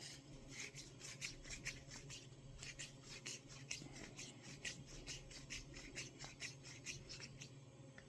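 Faint, repeated short scraping ticks of metal threads, about three a second, as the AP900B air rifle's valve assembly is screwed by hand back into its housing; they stop near the end.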